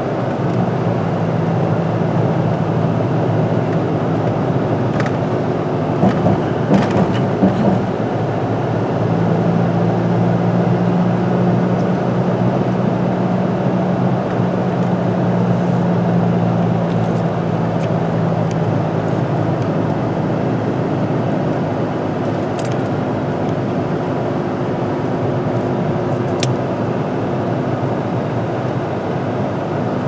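Road noise inside a moving car on a paved highway: a steady drone of engine and tyres, with a few short knocks about six to eight seconds in.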